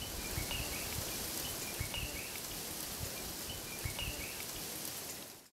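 Steady outdoor background hiss with a few short, faint bird chirps scattered through it; the sound cuts off suddenly near the end.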